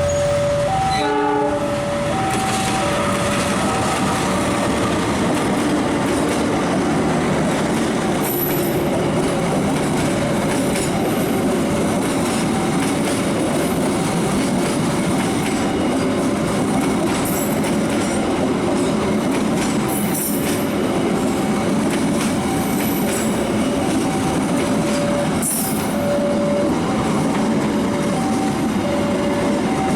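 A train passing with a steady, loud rumble of wheels on rails. Over it, a warning signal repeats two alternating notes, high and low, at an even pace.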